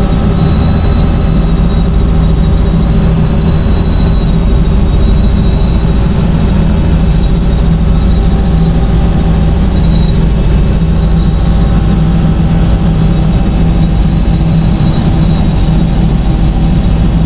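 Helicopter in flight heard from on board: a loud, steady drone of rotor and engine, with a thin high whine running through it.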